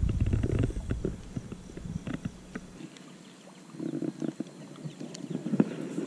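Low wind rumble on the microphone for the first second or so, then scattered light clicks and knocks from a spinning rod and reel being handled.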